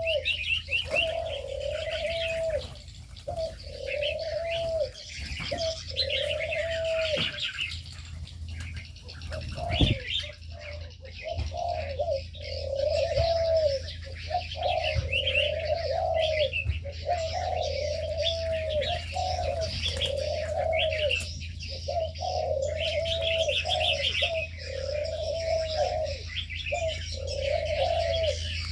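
Doves cooing over and over, about a second per note with a falling end, while small birds chirp and twitter at a higher pitch. A steady low hum lies underneath.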